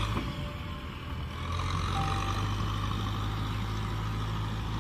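Kubota tractor's diesel engine running steadily while the tractor pushes mud with its front blade through a flooded paddy.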